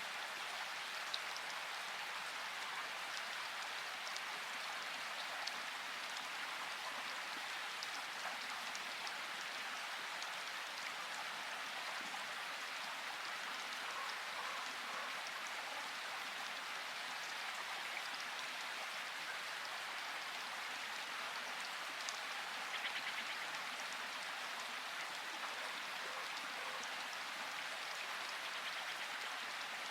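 Steady rainfall with scattered individual drips ticking, an even hiss that holds constant throughout.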